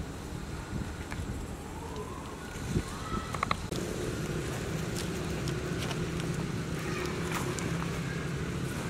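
A steady low motor hum, like an engine running, that grows stronger about four seconds in, with scattered light ticks and rustles over it.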